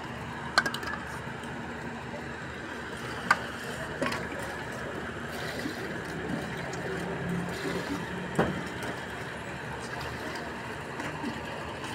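Street-stall ambience: a steady hum of traffic and background voices, with a few sharp clinks of utensils against steel pani pots.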